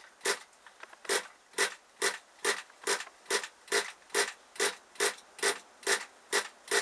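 Pull-starter of a very cold SH18 nitro engine yanked over and over, about two pulls a second, each pull a short rasp of cord and engine turning over. The engine does not fire: a cold start that is not catching.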